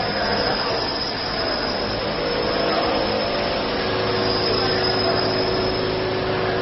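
Automatic thermal transfer ribbon slitting machine running steadily: a continuous mechanical whir of its motors and rewind shafts winding the slit ribbon onto rolls, with a faint high whine. A lower steady tone joins about four seconds in.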